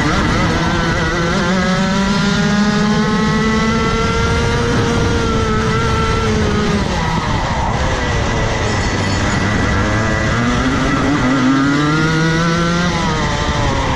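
Rotax Max Evo 125 cc two-stroke kart engine at racing speed, climbing in pitch for about six seconds as it accelerates, dropping away for a few seconds as it slows, then climbing again and falling off just before the end under braking. A steady high whine runs underneath.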